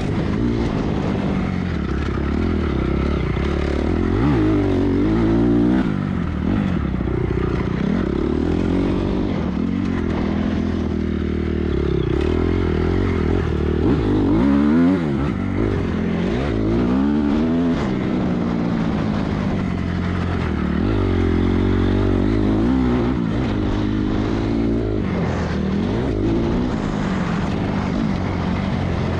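Off-road motorcycle engine ridden on a dirt track, its pitch climbing and dropping again and again as the throttle is opened and closed.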